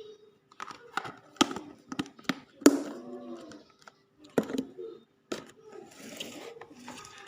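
Irregular knocks and clicks of food and containers being handled in a kitchen, with a faint steady hum underneath.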